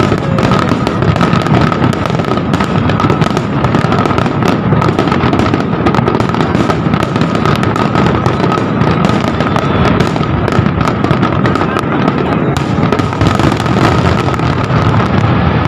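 Fireworks and firecrackers going off continuously all around, a dense, unbroken crackle of overlapping bangs and pops, with a steady high tone running underneath.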